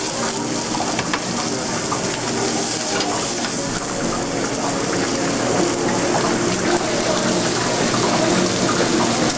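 Food sizzling in hot sauté pans over high gas burners, a steady hiss.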